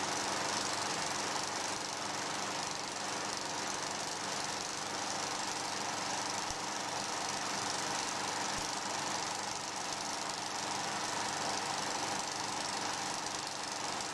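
Film projector running: a steady mechanical whirr with film hiss, even throughout.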